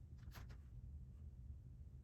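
Near silence over a low steady hum, with one faint short click about half a second in, typical of LEGO pieces being handled.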